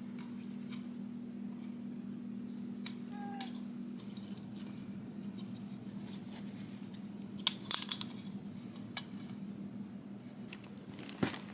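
Light metallic clinks and taps of hand tools being handled during an oil change, with a short cluster of louder clinks about three-quarters of the way through, over a steady low hum.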